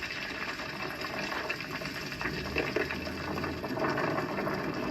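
Rockslide: rocks tumbling and clattering down a hillside in a continuous rush, with a deeper rumble in the middle.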